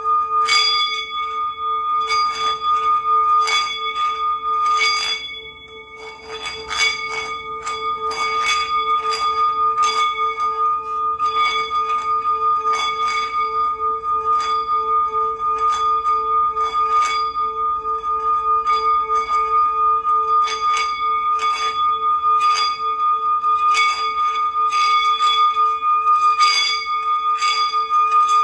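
Bells ringing for healing sound: a sustained, slowly pulsing ringing tone with bells struck over and over, about once or twice a second, each strike ringing on. The sound briefly drops quieter about five seconds in.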